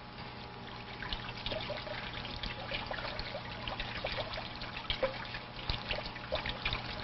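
Tap water running and splashing over a wristwatch and hand held under a faucet, starting about a second in as an irregular spatter.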